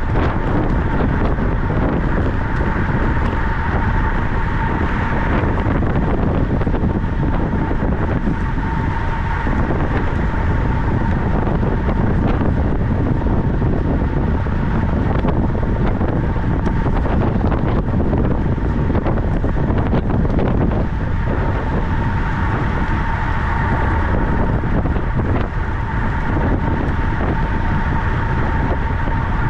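Wind rushing over the microphone of a camera on a bicycle riding at speed on a cycling track, loud and steady, with a thin high whine that fades in and out.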